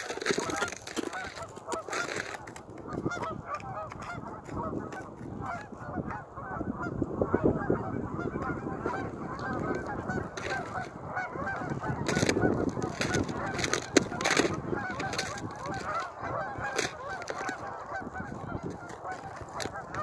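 A large flock of geese on open water honking continuously, many calls overlapping into a steady chatter.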